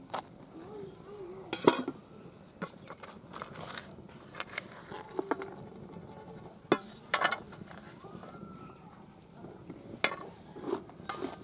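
Stainless steel plates clinking and scraping against one another as they are handled, with a few sharp clanks, the loudest about two seconds in.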